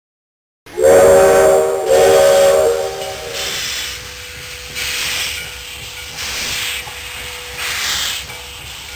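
Steam locomotive's chime whistle blown twice, followed by slow, evenly spaced chuffs of exhaust steam.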